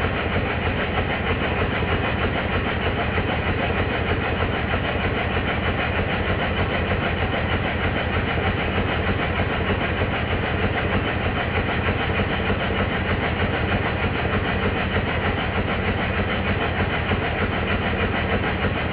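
Stuart triple expansion model steam engine running steadily on compressed air, with a fast, even exhaust beat.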